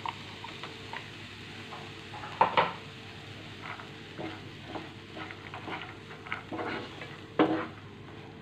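Soaked chana dal and onion-spice paste frying in a nonstick pan with a steady sizzle, stirred with a wooden spatula that knocks and scrapes against the pan. The two loudest knocks come about two and a half seconds in and near the end.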